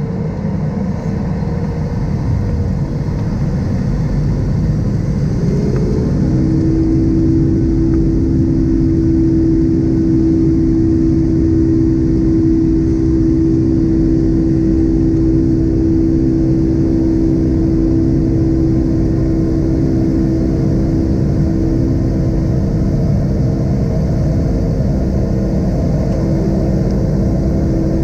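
Boeing 757-200 jet engines spooling up to takeoff thrust, heard inside the cabin: a rumble that grows louder over the first few seconds, with a tone rising about five seconds in and then settling into a steady drone over the rumble of the takeoff roll.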